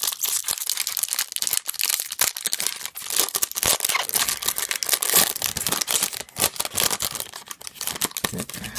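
Plastic wrapper of a sealed pack of hockey trading cards being torn open and crinkled, a dense run of crackling and rustling.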